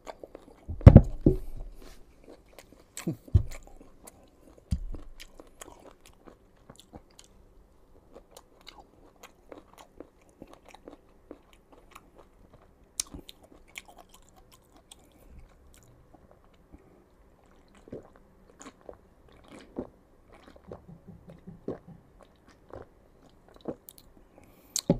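Close-miked biting and chewing of crisp, unripe green mango. Three loud crunchy bites come in the first five seconds, followed by softer, scattered chewing clicks.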